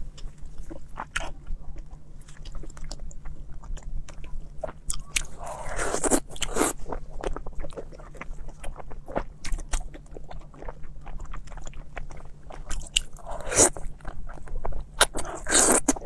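Close-miked wet chewing and lip-smacking of braised pork belly and sauce-soaked lettuce: a run of short sharp mouth clicks, with louder bursts of wet mouth noise about six seconds in and again near the end.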